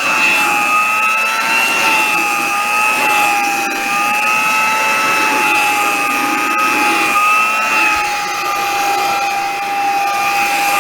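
Vintage Hamilton Beach straight-suction hand vacuum cleaner running steadily while vacuuming carpet: a high motor and fan whine that wavers slightly in pitch over a rush of air.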